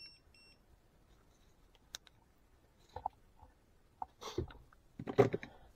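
Klein non-contact voltage tester giving two short, high-pitched beeps, followed by a few sharp clicks and the rustle of tools being handled and set down.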